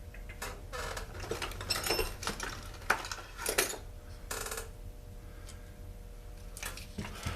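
Tools and small metal parts clinking and clattering on a workbench as a chainsaw is taken apart, a run of knocks and rattles through the first four or so seconds, then quieter, over a steady low hum.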